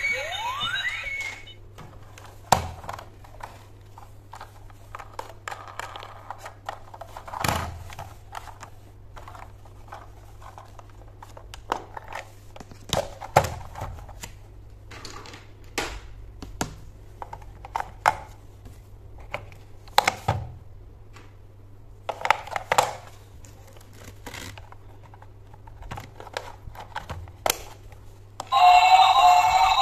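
Scattered plastic clicks and knocks from a battery-operated toy train being handled, its battery compartment opened and closed. Electronic toy music with a rising glide stops about a second in, and toy music starts again loudly near the end.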